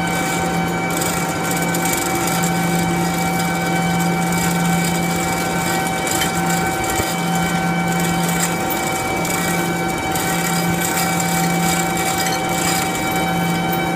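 Steady machinery hum with several constant whining tones, overlaid by the irregular clinking and rattling of a chain hoist's hand chain being pulled.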